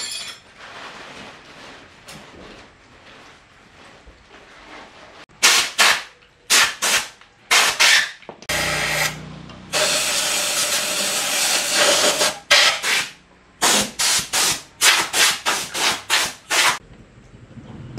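Wood being sanded by hand in quick, hard rubbing strokes. There are two runs of strokes, with a longer continuous stretch of rubbing over a low hum in the middle.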